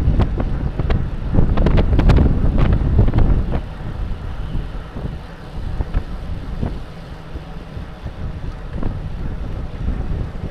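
Wind buffeting the microphone of a bike-mounted camera at race speed, stronger for the first few seconds and then easing, with scattered sharp clicks and knocks from the bike on the road.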